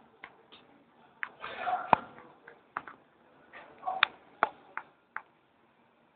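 A kitten scrambling and batting a small toy on a tiled floor: about ten scattered light taps and clicks from paws, claws and the toy, the loudest about two seconds in, with a few short breathy puffs among them.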